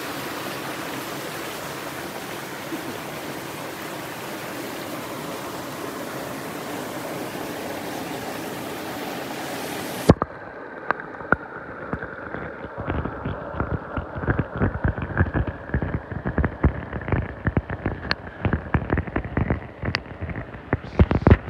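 Stream water flowing, an even steady rush for about ten seconds. Then it cuts abruptly to an underwater recording of a gravel streambed: a dense, irregular patter of clicks and knocks from the moving water that grows busier toward the end.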